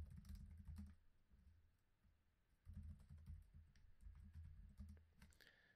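Faint typing on a computer keyboard: quick keystrokes in two bursts, the first about a second long, then a pause of under two seconds, then about three seconds more.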